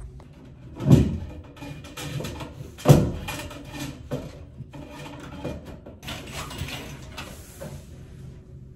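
Two dull thumps about a second and three seconds in, then lighter knocks and rustling as an extendable shower curtain rod is set in place between the walls and the plastic curtain is straightened.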